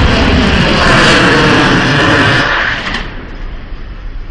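Loud rushing rumble of an underwater mine detonation carrying on after the blast, then fading away about three seconds in.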